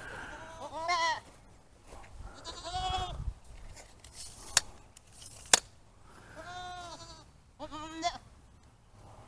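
Goats bleating, four short wavering calls spread through, with two sharp clicks in the middle.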